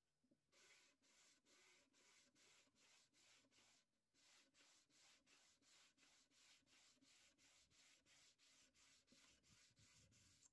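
Faint hand sanding of a wooden record-player case with 400-grit sandpaper on a sanding block. Quick back-and-forth strokes, about three a second, with a short pause about four seconds in.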